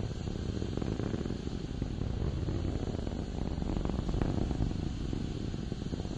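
Steady low, crackling rumble of the Atlas V rocket's RD-180 first-stage engine in powered flight.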